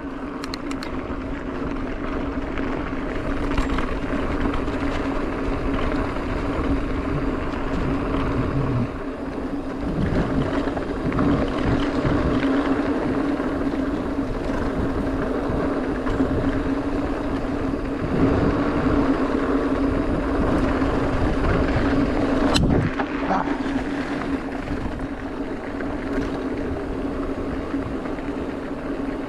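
Mountain bike rolling fast down a dirt fire road: continuous rolling and rushing noise with a steady hum, and a single sharp knock a little over 22 seconds in.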